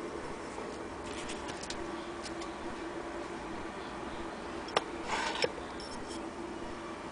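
Antique Willcox & Gibbs hand-crank chain-stitch sewing machine being turned by hand, its mechanism ticking lightly, with a few sharper clicks about five seconds in.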